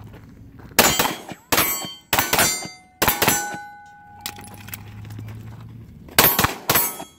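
Rapid handgun shots at steel plates, each crack followed by the ringing clang of the steel, in two quick strings of several shots. Between them comes a pause of about three seconds for a magazine change, with one plate still ringing.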